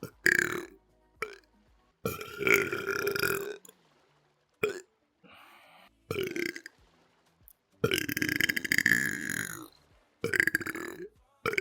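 A run of loud belches, about seven or eight of them, mixing short burps with two long drawn-out ones of a second and a half to two seconds.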